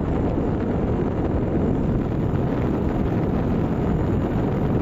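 Steady wind rumble on the microphone from riding along a road, with the vehicle's running noise underneath.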